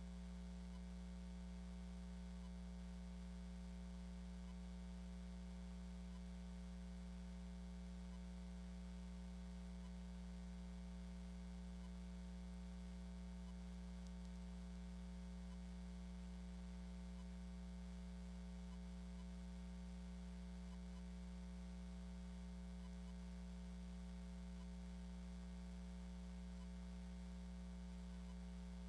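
Steady low electrical mains hum with fainter higher tones above it and a light hiss, unchanging.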